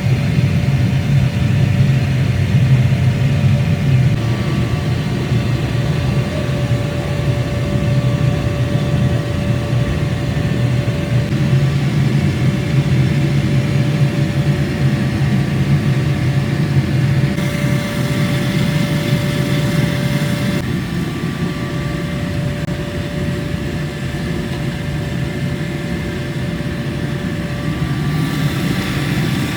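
Workshop machinery running steadily: a loud low hum with a steady whine over it, and a higher hiss that comes in for about three seconds past the middle and again near the end.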